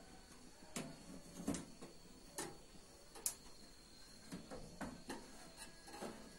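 Light metallic knocks and clinks, about eight of them at irregular spacing, as the metal lid of a stovetop oven is lifted and wedged ajar to let steam out so the top of the cake dries. A faint steady high whine runs underneath.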